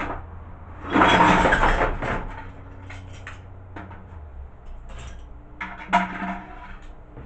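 A bucket being handled and small steel scrap pieces clattering into it. A loud rattle about a second in lasts about a second, followed by a few lighter clicks and a short clack near the end.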